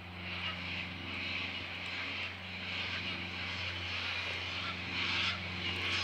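A motor engine drones steadily in the background, giving a low, even hum. Above it runs a steady high hiss that swells and fades every second or so.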